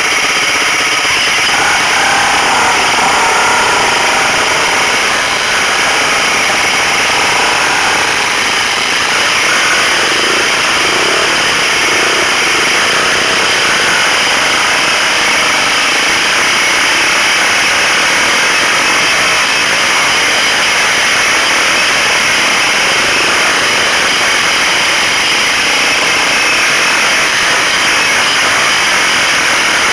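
Dirt bike engine running steadily under a constant rushing hiss, heard from a motorcycle riding a rough trail.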